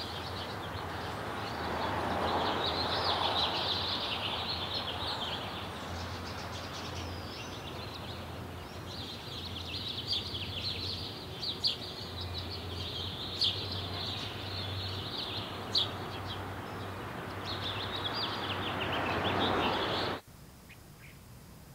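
Outdoor ambience of many birds chirping and twittering over a steady rushing noise and a low hum; it cuts off suddenly near the end, leaving only faint hiss.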